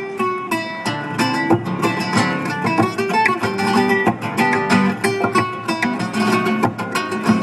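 Amplified acoustic guitar played with a fast plucked melody over a looped percussion track that the guitarist recorded himself, with sharp, regular beats under the notes.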